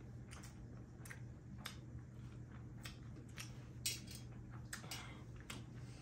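Close-miked eating sounds: scattered soft clicks and smacks of chewing as two people eat rice, fish and pork with their hands. A low, steady hum runs underneath.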